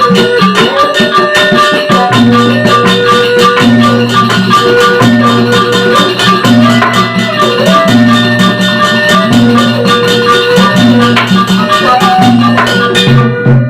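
Sasak gamelan ensemble playing a wayang gending: a fast, even rattle of percussion over held low tones and a repeating melody.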